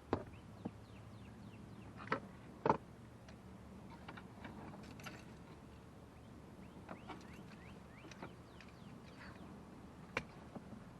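A handful of sharp plastic clicks and knocks from an HVAC vacuum-actuator part being handled. The loudest come as a pair a little over two seconds in, with another near the end.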